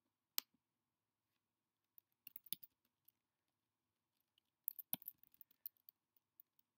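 Computer keyboard keys being typed: a single sharp click about half a second in, then two short bursts of keystrokes, around two seconds in and again from about five seconds in.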